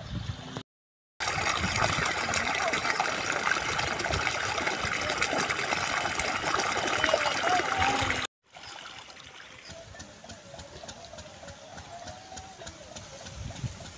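Shallow water sloshing and splashing underfoot as someone wades through a flooded rice paddy, steady for about seven seconds. It cuts off abruptly to a much quieter stretch.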